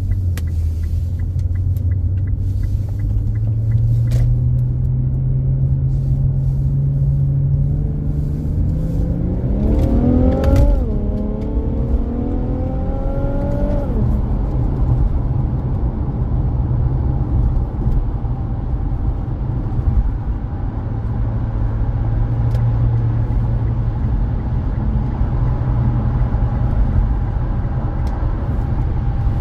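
Infiniti Q50 Red Sport 400's twin-turbo 3.0-litre VR30 V6, through its stock exhaust, accelerating hard. The engine note climbs steeply, dips once with a gear change, climbs again, then drops back to a steady cruising drone.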